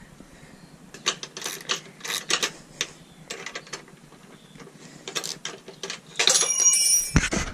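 Socket ratchet wrench clicking in short strokes while loosening a luggage-rack mounting bolt, with a louder, longer grating rattle near the end.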